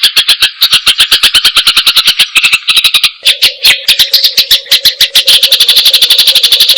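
Small songbird giving a fast, unbroken chatter of short, sharp chirps, about ten a second, as in a bird-song training recording. From about three seconds in the chirps come faster and more even, with a steady low hum beneath them.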